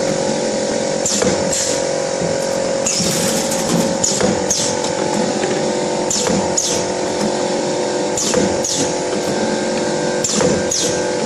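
YX400 wire-cut cookie depositing machine running with a steady hum, and a pair of quick swishes about every two seconds as each depositing and cutting cycle comes round.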